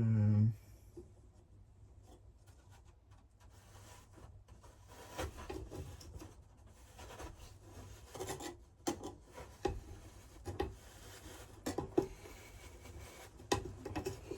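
Hands scraping and rubbing inside an opened electric melting furnace while working its heating element loose, with irregular light knocks and clicks that grow busier after the first few seconds.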